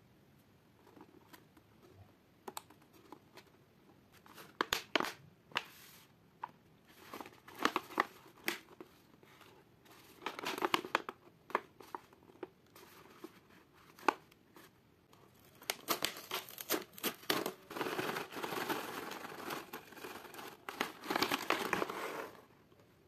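Crinkling of a plastic snack pouch handled and turned over in the hands, in scattered crackles. About sixteen seconds in, it becomes a long, dense stretch of rustling and crinkling as the pouch is opened and the brownie crisps are taken out.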